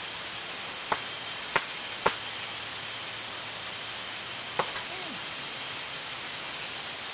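Tropical rainforest ambience: a steady hiss of insects with a thin high-pitched whine, broken by four sharp clicks in the first five seconds.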